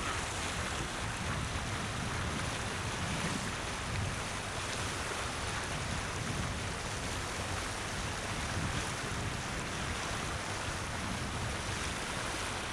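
Steady rush of water along the hull of a boat under way, with wind buffeting the microphone.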